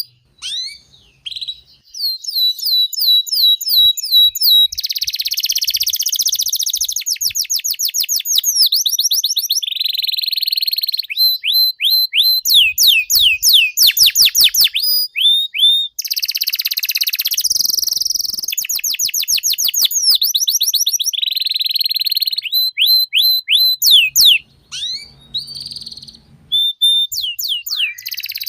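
Domestic canary singing a long, continuous song: fast runs of repeated high-pitched sweeping notes alternating with dense buzzing rolls. The song thins to scattered shorter phrases in the last few seconds.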